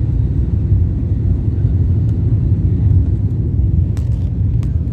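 Steady low rumble of a jet airliner's engines and airflow heard inside the passenger cabin during the descent to land, with a couple of faint clicks near the end.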